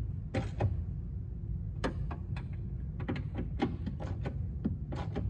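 Irregular sharp metallic clicks of a socket ratchet worked in short strokes on the 10 mm bolts holding a side-view mirror, over a steady low hum.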